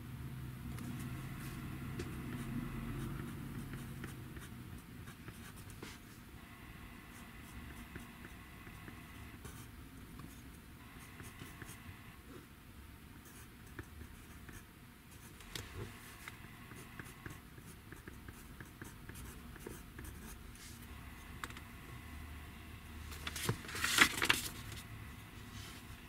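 Pencil writing on workbook paper, in stretches of soft scratching strokes, with a brief louder scuffing noise about 24 seconds in.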